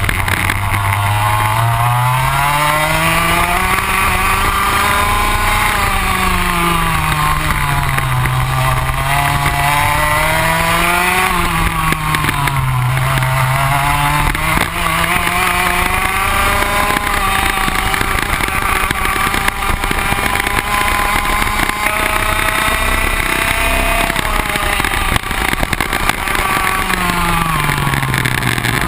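Rotax Max 125 single-cylinder two-stroke kart engine at racing speed, heard onboard. The revs climb on each straight and drop back as the kart slows for corners, several times over, then hold high for a long stretch before falling sharply near the end.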